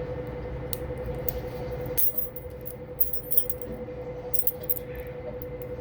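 Small metallic clicks and rattles of lock picks working inside a Master Lock maximum security padlock, sharpest about two and three seconds in, over a steady low hum.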